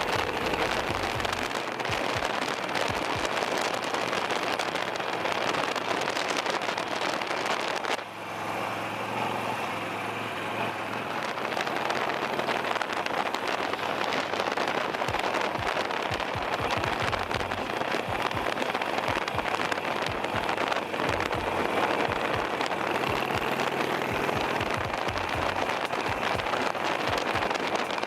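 Wind rushing and buffeting over the microphone of a body- or bike-mounted camera on a moving motorcycle, with the engine running underneath. About eight seconds in the wind hiss briefly drops and the engine's low note comes through, then the wind rises again.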